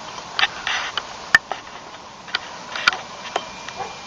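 Scattered light clicks and brief rustles at irregular moments, with one sharper click about a second and a half in, over a steady low hiss.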